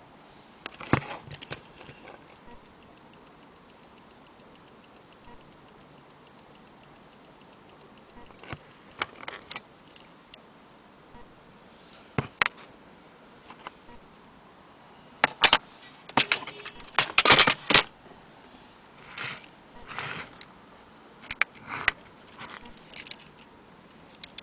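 Antique French mantel clock ticking faintly, broken by irregular sharp clicks and rattles in several clusters, the loudest about two-thirds of the way through.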